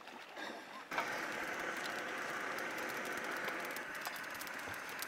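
Steady hiss of a backpacking canister stove's burner running under a pot, starting abruptly about a second in.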